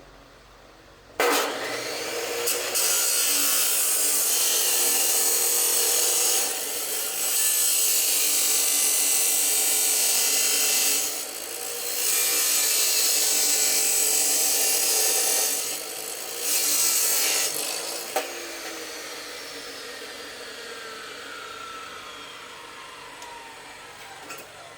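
Power cutting tool running under load in four long passes with brief dips between them. After it is released, a falling whine fades as the tool spins down.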